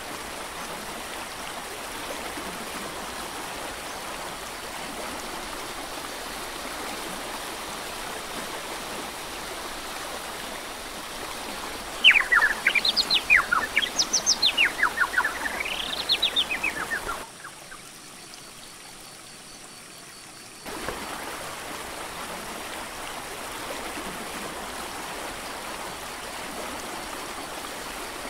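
Steady rushing of a mountain creek. Near the middle a bird sings a rapid run of quick notes rising and falling for about five seconds. Just after the song, the rushing drops away for about three seconds, then resumes.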